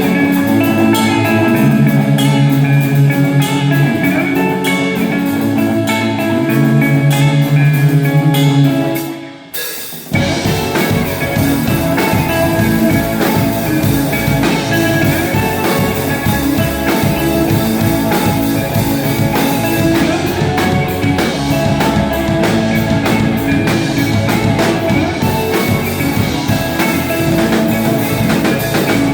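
Live rock band playing an instrumental passage with guitars, bass and drums. About nine seconds in, the music nearly drops out for a moment, then comes back in denser, with the full drum kit.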